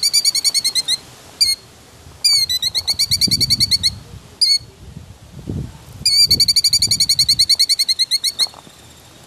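Killdeer giving its trilling alarm call: three long runs of rapid high notes, about ten a second, with a few single notes between the runs. It is the call of a parent bird agitated at an intruder near its nest.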